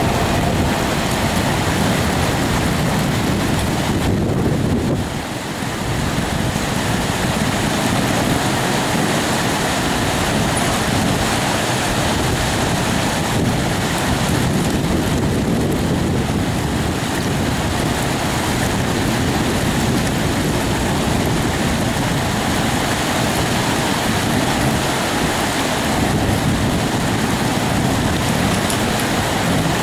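Trials motorcycle engine running as the bike climbs rock ledges, under a steady rushing noise, with a brief dip about five seconds in.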